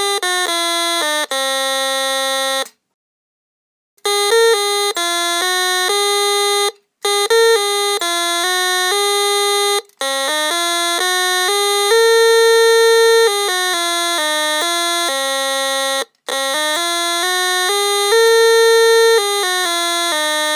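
Home-built NE555 timer electronic organ playing a simple tune of single buzzy notes, stepping from pitch to pitch with a few brief pauses, the longest about three seconds in.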